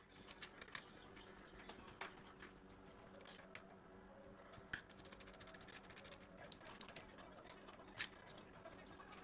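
Faint, scattered clicks and knocks of metal tools being handled, with a quick run of rapid clicks in the middle, over a low steady hum.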